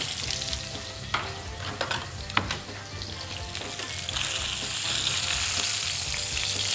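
Fish steaks sizzling as they fry in oil in a steel frying pan. A spatula clicks and scrapes against the pan a few times between about one and two and a half seconds in. The sizzle grows louder after about four seconds as the fish is lifted and moved.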